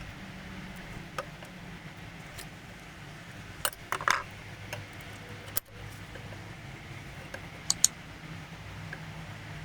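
Metal parts being handled: a few light clicks and clinks at uneven intervals, one ringing briefly about four seconds in and a sharp double clink near the end, over a steady low hum.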